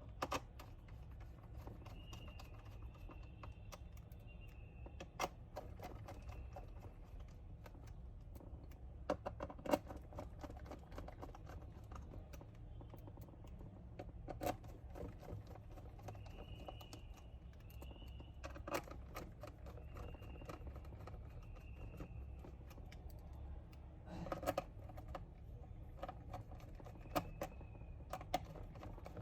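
Scattered light clicks and taps from a screwdriver fitting and tightening the screws of a laptop's plastic base panel, with a few closer clusters of clicks. A low steady hum runs underneath.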